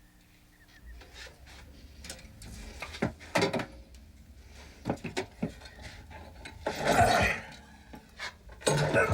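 Clatter of household objects being handled: scattered clicks and several sharp wooden knocks, then a rushing noise swell about seven seconds in and another near the end.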